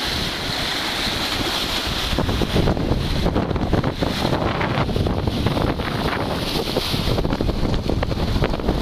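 Strong wind buffeting the microphone, with choppy river water splashing and lapping against ice-coated shore rocks.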